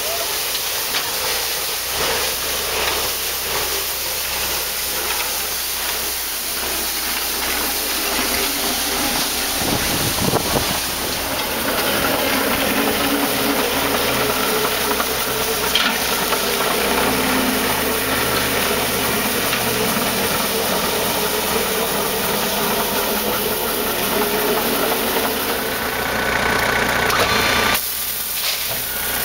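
Forklift engine running as it drives a forklift-mounted sweeper attachment, with a steady hiss of the brushes on wet pavement over it. The engine's even hum comes up more strongly about ten seconds in.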